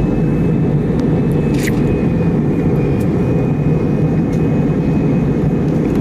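Airliner cabin noise in flight: a steady, loud low rumble of engines and rushing air, with a faint steady high whine and a few light clicks or rattles.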